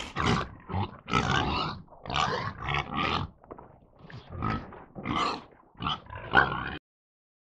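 Hog squealing and grunting in a run of harsh, rough calls of uneven length, which cut off suddenly near the end.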